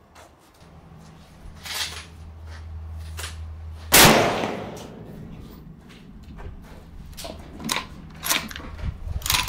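A single shot from a Savage AXIS II XP bolt-action rifle in .223, firing 75-grain Speer Gold Dot, about four seconds in, with a trailing echo. It is followed by several fainter sharp clicks and cracks as the bolt is worked.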